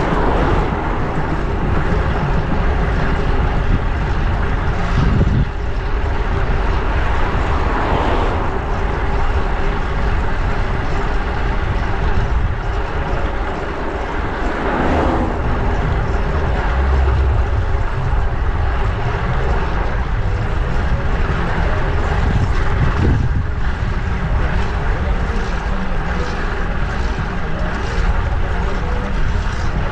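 Steady rushing wind noise on a bike-mounted action camera's microphone while riding a fixed-gear bicycle through city traffic. Several louder swells come and go as vehicles pass.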